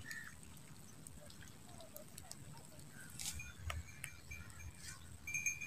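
Faint outdoor ambience with scattered short bird chirps, a few light clicks and rustles, and a faint steady high tone.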